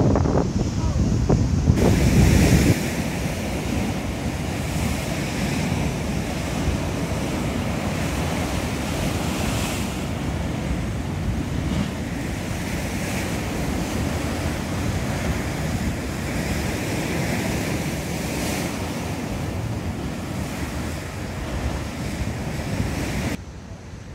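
Rough sea surf breaking and washing against a seawall, a steady rush of waves that swells every few seconds. Wind buffets the microphone, heaviest in the first couple of seconds.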